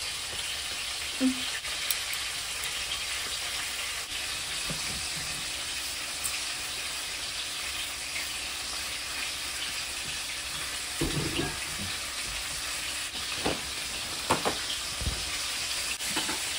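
Chicken frying in a pan with a steady sizzle, broken by a few dull knocks near the end.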